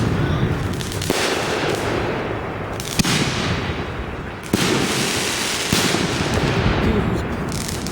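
Fireworks going off in a dense, continuous barrage, with sharp loud reports about one, three, four and a half, and nearly six seconds in, each dying away into crackle.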